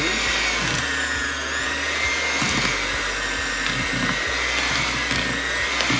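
Hamilton Beach electric hand mixer running with a steady motor whine, its beaters churning crumbly cookie dough.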